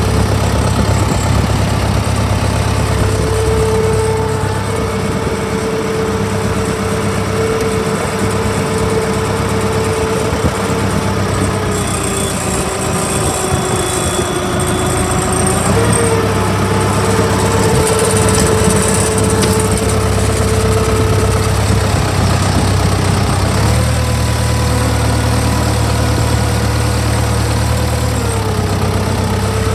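1992 Ford 6640SLE PowerStar tractor's four-cylinder diesel engine running at a steady idle. Its speed shifts slightly a few times, dipping and rising in small steps.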